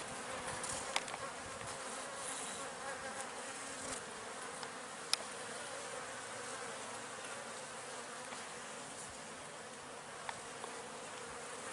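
Honeybees buzzing in a steady hum around an opened hive, with a single sharp click about five seconds in.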